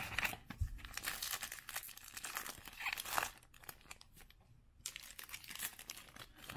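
A plastic trading-card pack wrapper crinkling and tearing as it is ripped open: about three seconds of dense crackling, a short lull, then another burst of crinkling around five seconds in.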